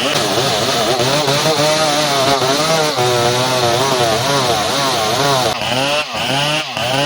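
Two-stroke chainsaw cutting through ulin (Borneo ironwood), the engine pitch wavering as it works under load; near the end the engine revs up and down in quick swings.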